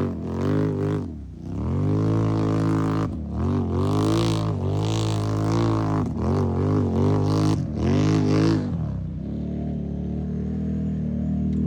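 ATV engine revving over and over, its pitch rising and falling in quick surges, then settling to a steadier, lower run about nine seconds in.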